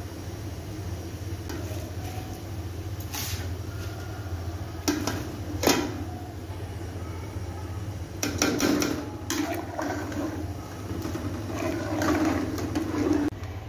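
Pulao water boiling in a metal pot while a metal ladle stirs it, splashing the liquid and knocking and scraping against the pot several times, loudest near the middle and towards the end. A steady low hum runs underneath.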